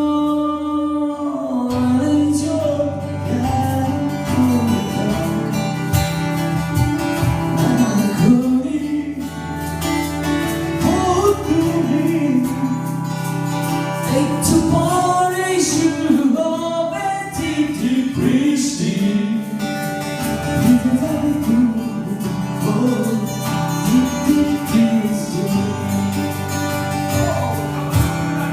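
A voice singing a wordless, gliding melody over steady guitar accompaniment.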